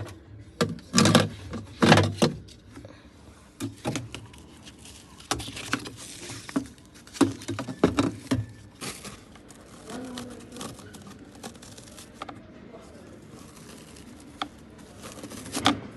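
Irregular knocks and clatter, loudest about a second or two in and again from about five to eight seconds in, with quieter rustling between.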